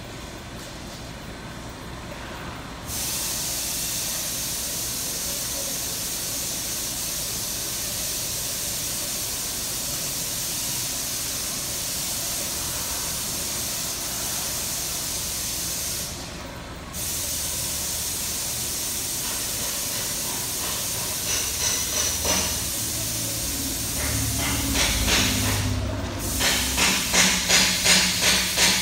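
Accumulation conveyor with a modular plastic belt running, carrying plastic cups: a steady hiss that starts about three seconds in and drops out briefly midway. Near the end a regular clatter of about three beats a second grows louder.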